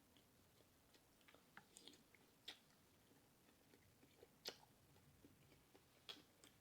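Faint chewing and mouth smacking: a scattering of soft, wet clicks at uneven intervals, the loudest about four and a half seconds in.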